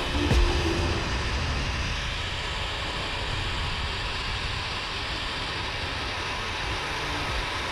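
Zipline trolley pulleys running steadily along the steel cable during a ride, a continuous even whir, with wind noise on the microphone.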